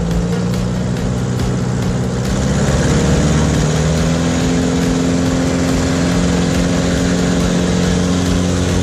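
Pitts S-1S aerobatic biplane's engine and propeller running steadily as the plane flies a low approach along the runway. About two and a half seconds in, the engine note shifts higher and gets a little louder, then holds steady.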